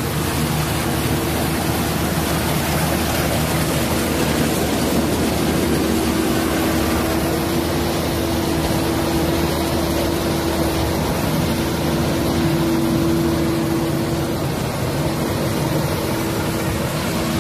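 Rice combine harvester's engine running steadily close by: a continuous drone with a steady hum that strengthens in the middle.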